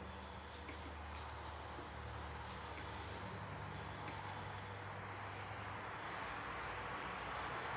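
A cricket chirping steadily, one high pulsing note repeated evenly throughout, over a low steady hum.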